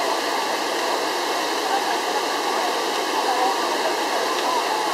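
Trevi Fountain's cascades pouring over the rocks into the basin: a steady rush of falling water. Faint chatter from a crowd of voices sits underneath.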